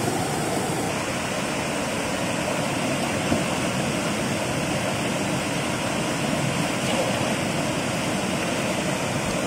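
A small waterfall cascading over boulders into a rocky river: a steady rush of white water.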